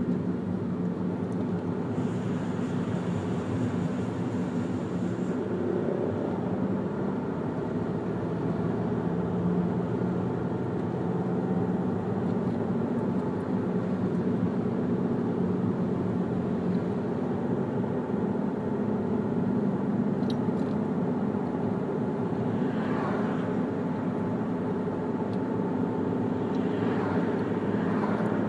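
A car driving in motorway traffic: steady engine and tyre noise with a low hum.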